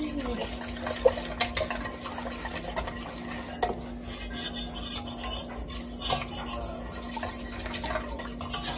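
Hand wire whisk beating a wet mixture of eggs, oil, broth and peanut butter in a stainless steel mixing bowl, with irregular light clinks and scrapes of the wires against the metal.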